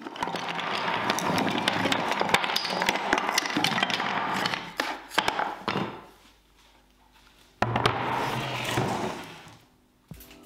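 Pieces of scrap wood clattering and knocking together in a dense run of sharp clicks that fades out after about five seconds. After a short pause, a second burst of noise with a low hum under it starts suddenly and dies away.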